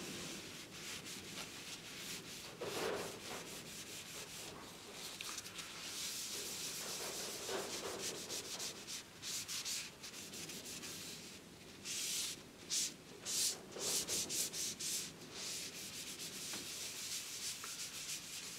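A cloth rubbing a thin primer coat of paint onto an aluminium plate in rapid back-and-forth wiping strokes, sharper and louder for a few seconds past the middle. It is a wipe-over that works the paint into the surface so the next coats will adhere.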